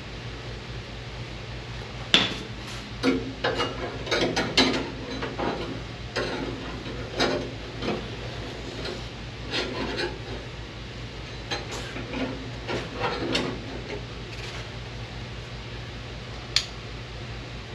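Sheet-metal patch panel being worked and bent by hand: irregular metallic clanks, knocks and scrapes, with a sharp hit about two seconds in and a single click near the end, over a steady low hum.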